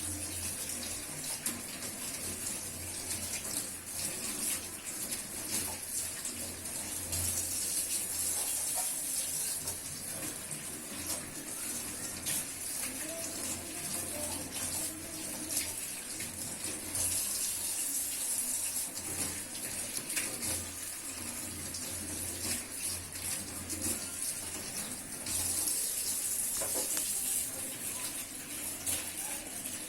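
Steady water noise that splashes and bubbles without a break.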